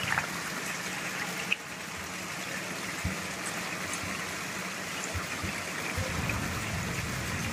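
A stream of water falling from a height into a burning metal bin, a steady splashing rush of water.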